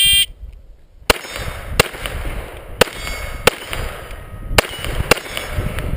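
Shot timer's start beep, then a string of seven .22 rimfire pistol shots fired at steel targets. The first shot comes about a second after the beep, and the rest follow roughly every half second to one second.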